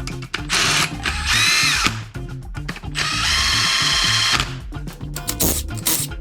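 Handheld power drill run in separate bursts. A short burst about half a second in is followed by one that winds down in pitch. About three seconds in comes a longer steady run of roughly a second and a half. Background music plays underneath.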